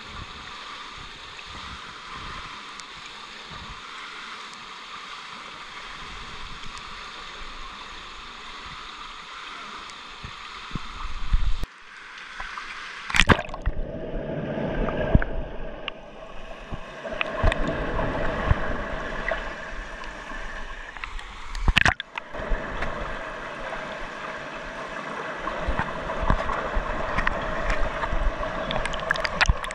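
Pool water heard underwater through an action camera's waterproof housing: an even, muffled hiss for the first ten seconds or so, then sloshing and churning water as the camera moves, with sharp knocks on the housing about thirteen and twenty-two seconds in.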